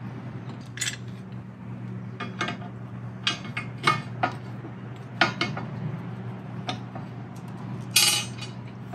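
Steel roller fairlead clinking and knocking against a steel winch mounting plate as it is set in place by hand: scattered short metallic clanks, with a louder scraping clank near the end. A steady low hum runs underneath.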